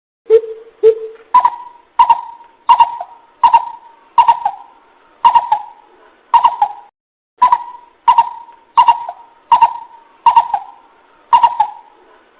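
Coucal hooting: a steady series of short hollow notes, roughly one every 0.7 seconds, opening with two lower-pitched notes.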